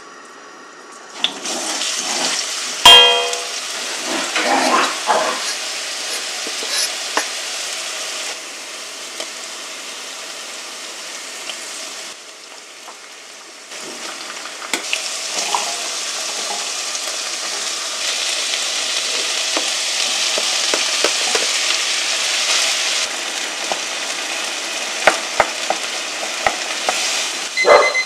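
Minced garlic sizzling in hot oil in a nonstick wok, stirred with a wooden spoon, with a sharp knock about three seconds in as the loudest moment. The sizzle dies down briefly near the middle, then comes back louder as sliced ham goes into the pan.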